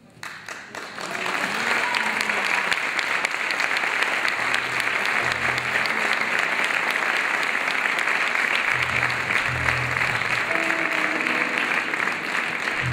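Audience applauding steadily, building up about a second in. Underneath, an upright double bass plucks a few low notes from about four seconds in.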